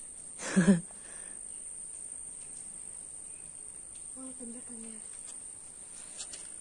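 Steady high-pitched insect drone, as from crickets, running throughout. A short loud vocal exclamation comes about half a second in, and a faint voice is heard a little past the middle.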